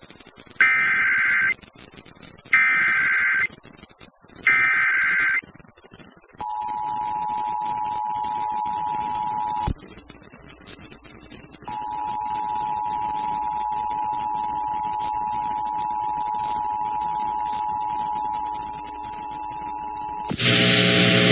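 Emergency Alert System header on a relayed weather-radio alert: three loud, screeching SAME data bursts about a second long and two seconds apart, then the steady two-note EAS attention tone. The tone breaks off for a couple of seconds, resumes, and gives way near the end to a louder, buzzy burst.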